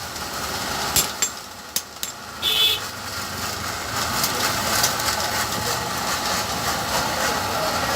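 A steady engine running, swelling in at the start, with a few sharp knocks in the first two seconds and a short high beep about two and a half seconds in.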